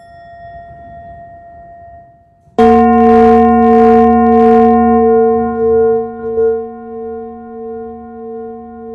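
Brass singing bowl and small hanging bell struck with a mallet: a light strike at the start rings with a thin high tone, then a loud strike about two and a half seconds in sets off a deep, many-toned ring that wavers slowly in loudness as it fades.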